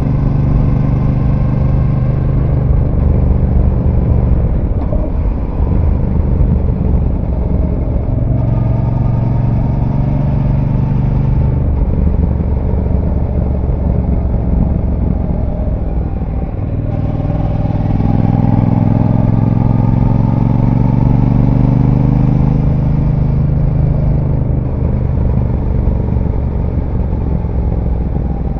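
Brixton Cromwell 1200's parallel-twin engine through its stock exhaust, heard on board while riding: the engine note rises and falls with the throttle through a series of bends. Past halfway it pulls up in pitch for several seconds, then eases off near the end.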